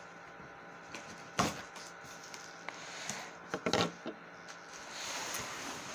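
Flaps of a cardboard shipping box being pulled open by hand: a sharp crack about a second and a half in, a few knocks and scrapes a little past halfway, then a soft rustle near the end.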